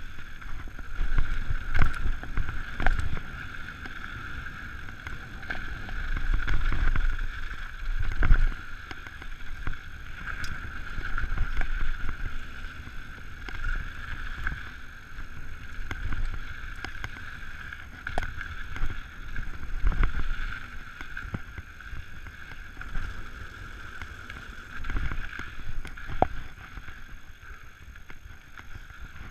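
Giant Trance 29 full-suspension mountain bike descending a dirt trail at speed: tyres rumbling over the dirt, with repeated knocks and rattles as it hits bumps and wind gusting over the microphone. A steady high-pitched whir runs under it all.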